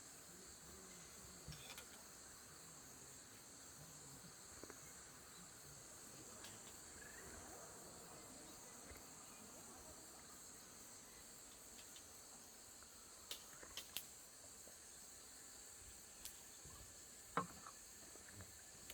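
Faint, steady high-pitched insect chorus, like crickets, with a few soft clicks and a knock in the second half.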